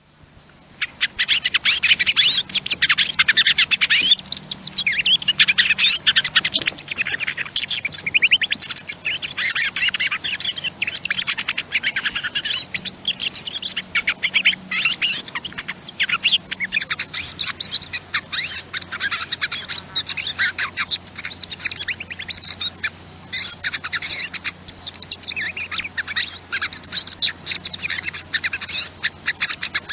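Common chaffinch chirping and twittering, rapid high notes coming in dense bursts with short pauses.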